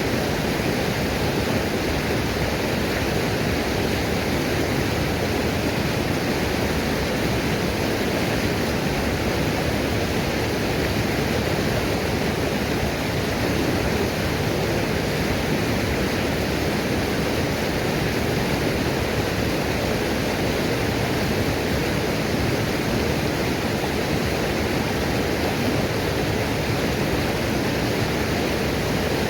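Waterfall pouring in a steady, even rush of falling water, with no change in level.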